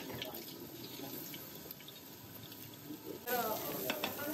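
Lamb chop sizzling on a hot dome-shaped grill plate: a steady hiss. A voice comes in about three seconds in.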